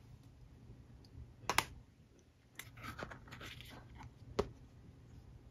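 Hands handling an iPad in a plastic trifold case with an Apple Pencil: a sharp click about a second and a half in, some rubbing and rustling of the case, and a second click near the end.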